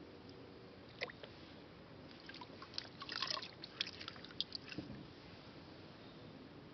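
Faint small wet clicks and squishes of hands and water working around wet clay on a potter's wheel: one sharp click about a second in, then a scatter of small wet ticks for a couple of seconds.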